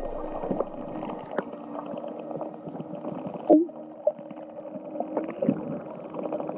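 A dolphin pod heard underwater while hunting a bait ball: scattered clicks and faint held whistles, with one louder short gliding call about halfway through.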